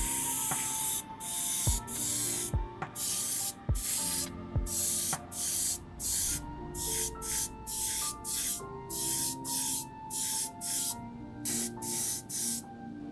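Airbrush spraying paint: a steady hiss for about the first second, then short bursts about twice a second as the trigger is pulsed, stopping near the end. Background music plays underneath.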